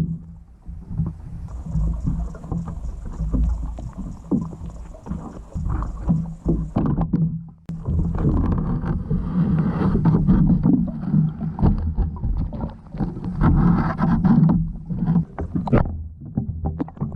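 Underwater sound picked up by a GoPro sunk in a fish trap: a steady low rumble with many scattered clicks and ticks, and a faint high hiss during the first few seconds.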